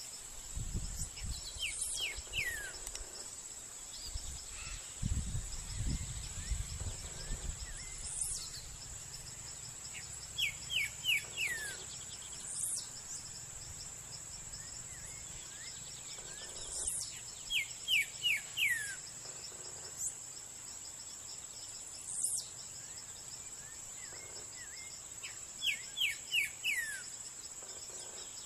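Rural ambience: a steady high-pitched insect drone, with a bird repeating a short phrase of four or five quick falling notes about every eight seconds and other faint chirps. A couple of low rumbles come in the first few seconds.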